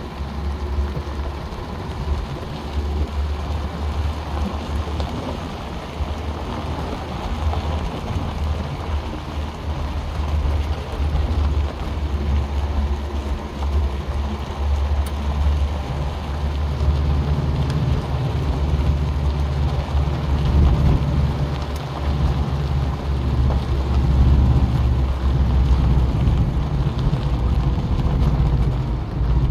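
1986 Subaru Brat's flat-four engine running at low speed on a gravel road, a steady low rumble with the patter of tyres on gravel. The engine sound grows louder a little past halfway.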